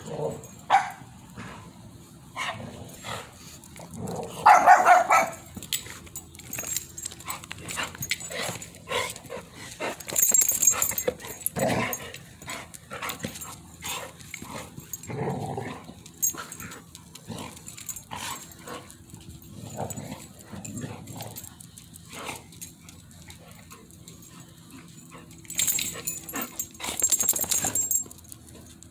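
Golden retrievers play-fighting, making many short barks and rough play vocalisations at irregular moments, the loudest a bark about four to five seconds in.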